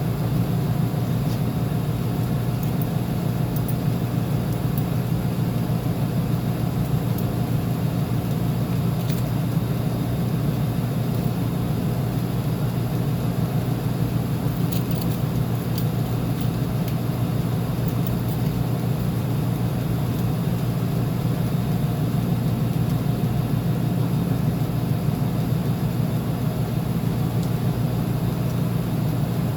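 Uni-Mac UniMat 35 commercial washing machine running with a steady low hum and rumble.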